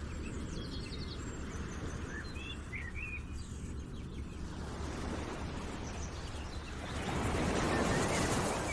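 Background ambience: a steady wash of noise over a low hum, with a few faint chirps two to three seconds in and the noise swelling near the end.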